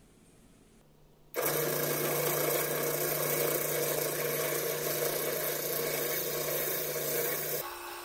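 Electric drill motor with a chuck and bit running steadily while it bores into a hand-held turned wooden piece, throwing out chips. It comes in abruptly after about a second and drops to a quieter, different steady hum near the end.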